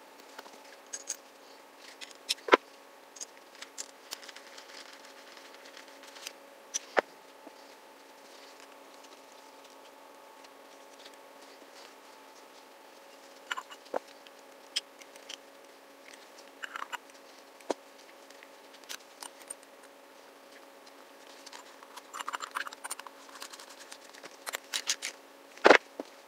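Scattered clicks, taps and small knocks of a carburetor body and its small metal parts being handled and set down on a paper shop towel during reassembly, busiest in the last few seconds, with a sharp knock about two and a half seconds in and another near the end. A steady low hum runs underneath.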